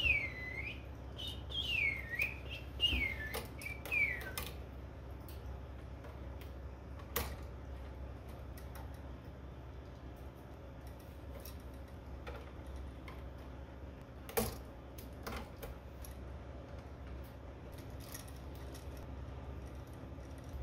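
Scattered sharp clicks and light knocks of hands working a duplex outlet, a light switch and their wires at a plastic electrical box, over a steady low hum. There are a few high gliding whistles in the first four seconds.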